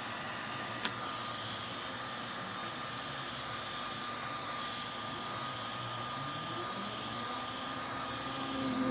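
Hot-air blower running steadily with a constant fan whine, heating the phone's front glass to soften the adhesive before prying. A single click about a second in.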